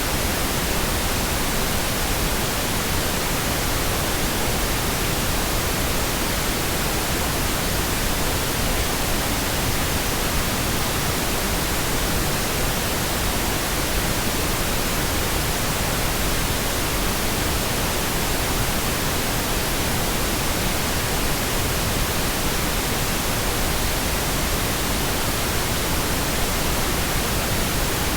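Synthetic pink noise: a steady, even hiss spread across the whole range, with no change or events.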